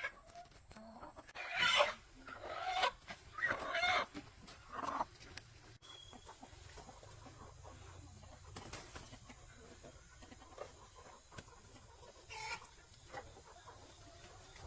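Chickens clucking: a run of short calls in the first few seconds, then a single call near the end.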